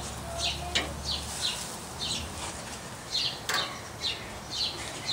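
A bird chirping over and over: short falling chirps, about two a second. Two sharp clicks come through, one near the start and one a little past the middle.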